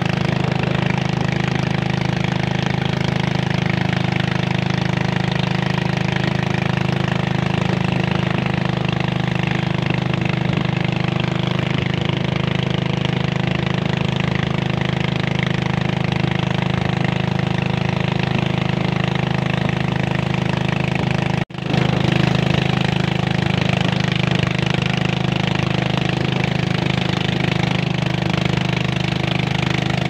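Small boat engine running steadily at cruising speed, a constant drone pushing a narrow boat along; the sound cuts out for an instant about two-thirds of the way through.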